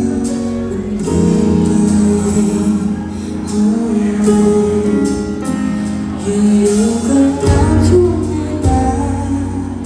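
Live band music: a woman singing into a microphone over electric guitar, keyboard and drums, with cymbal hits. Heavy bass notes come in about seven and a half seconds in.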